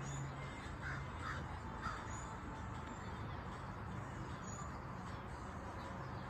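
A few short bird calls in the first two seconds, over a steady background noise.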